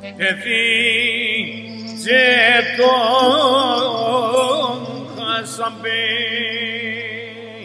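Tsakonian folk song: a voice sings long held notes with a wide vibrato over a steady accompaniment, in phrases broken by short pauses.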